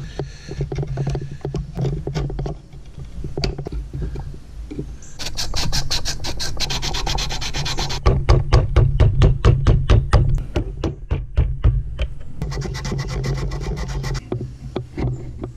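A chisel and hand tools scraping and paring a Morado hardwood axe handle held in a bench vise, shaping its end to fit the axe head's eye. There is a run of fast rasping strokes about five seconds in, then a run of quick sharp taps from about eight seconds in, then more rasping near the end.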